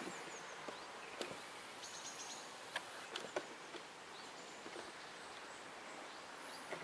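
Quiet outdoor ambience by a reedy lake: a steady faint hiss with a few short high bird chirps, near the start and again about two seconds in, and several light clicks.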